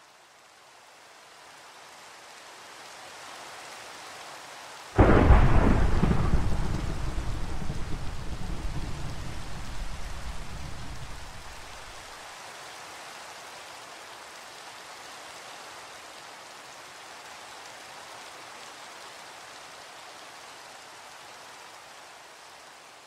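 Steady rain with a sudden loud thunderclap about five seconds in, rumbling away over the next several seconds; the rain fades out near the end.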